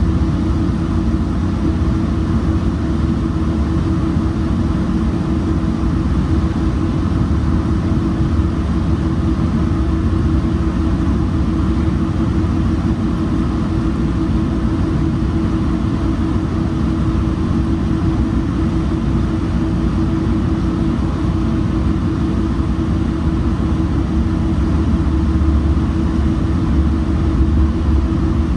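Metrolink commuter train running along the track, a steady low rumble with a constant hum heard from on board, growing a little louder near the end.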